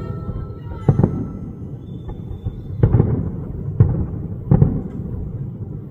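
Aerial fireworks shells bursting: four sharp bangs, each followed by a low rumbling echo that carries on between them.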